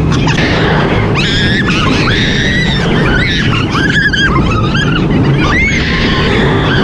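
Roller coaster in motion: a loud, steady rush of wind buffeting the microphone, with riders shrieking and screaming over it again and again.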